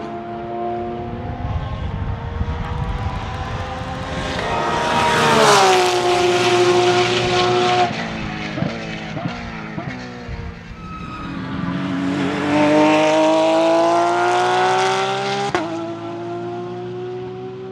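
Porsche 992 GT3 R race car's naturally aspirated 4.2-litre flat-six running hard on track. Its note falls sharply about five seconds in, a few sharp cracks follow, then the pitch climbs steadily as it accelerates, broken by a crack at a gearshift near the end.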